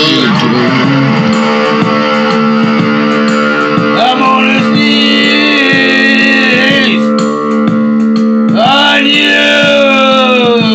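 Music led by guitar, with a steady low note held underneath and sweeping slides in pitch about four seconds in and again near the end.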